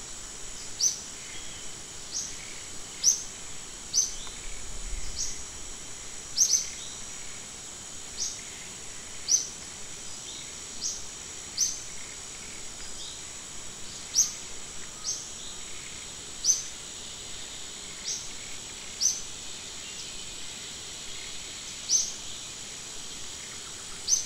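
Outdoor insect chorus: a steady high drone, with a short, high, rising chirp repeated about once a second at uneven intervals over it.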